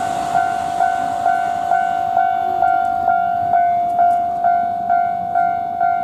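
Japanese railway level-crossing alarm ringing its repeated electronic 'kan-kan' tone, about twice a second, while the crossing barriers are down. The rumble of the passing train dies away just at the start.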